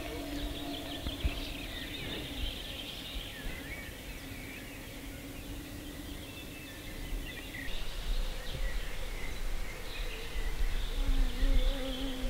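Forest and lakeside ambience: small birds chirping high and fast, with an insect buzzing close by at a wavering hum near the start and again in the last second or so.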